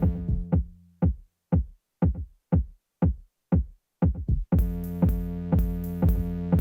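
Electronic dance music played live on drum machine and synthesizer. About a second in, the bass and synths drop out, leaving only a kick drum that falls in pitch on each hit, about twice a second. Near the end the full beat with bass, synths and hi-hats comes back in.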